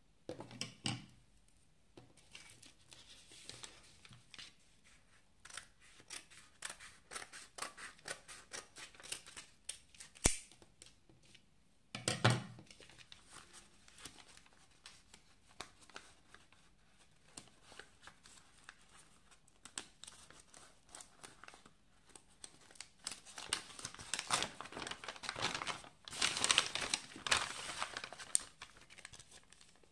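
Brown kraft-paper mailer envelope handled and torn open by hand: paper crinkling and rustling in many short scrapes, with a sharp click about ten seconds in and a soft thump soon after. The rustling and tearing grow dense and loud near the end.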